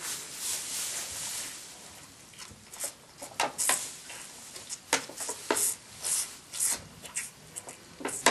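Charolais calf sucking milk from a plastic feeding bottle: irregular wet slurps and squelches, after a short spell of rustling straw.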